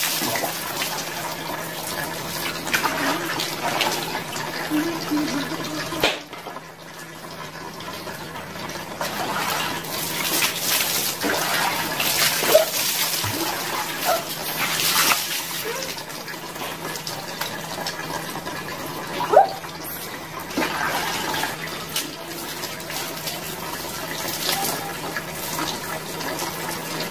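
Water poured from a plastic dipper over a person bathing, with repeated scoops from a plastic tub and splashing. The splashing drops away for a moment about six seconds in.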